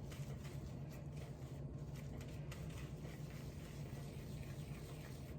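Faint, soft, irregular squishing of hands rolling raw ground-meat meatballs, over a steady low hum.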